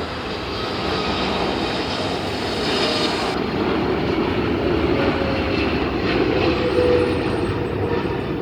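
Boeing 777-300ER's GE90 jet engines rumbling as a steady, broad roar that grows gently louder. Near the end a faint tone slides slowly down in pitch.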